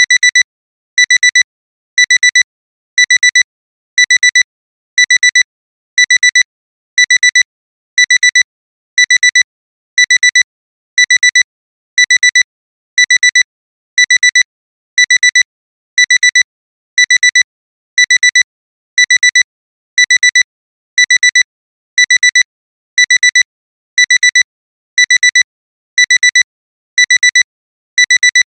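Digital alarm clock beeping: short clusters of quick, high-pitched electronic beeps repeating about once a second without a break. This is the continuous alarm that signals the timer has run out.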